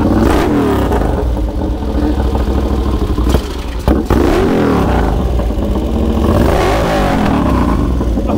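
Race-tuned Moto Guzzi V-twin, a Le Mans-derived engine taken out to 1100 cc with Mikuni carburettors bored to 48 mm, being revved repeatedly, its revs rising and falling several times. The revs drop briefly, with a sharp crack, about three and a half seconds in.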